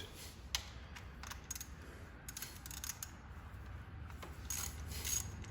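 A few scattered clicks and knocks of tool handling, then, about four and a half seconds in, a ratchet wrench starts clicking at a steady rate of about three to four clicks a second as it works a bolt loose.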